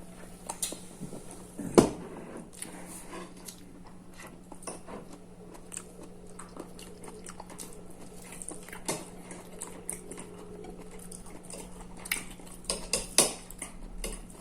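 Close-miked eating sounds: chewing and mouth noises, with scattered clinks and taps of a plate or dishes. The sharpest tap comes about two seconds in and a cluster comes near the end, over a faint steady hum.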